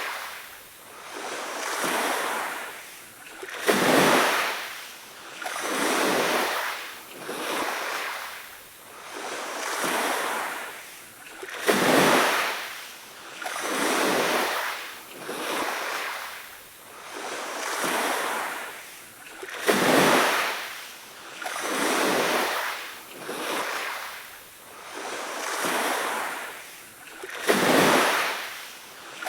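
Sea waves washing in, a hiss that swells and fades about every two seconds, with a sharper crash roughly every eight seconds.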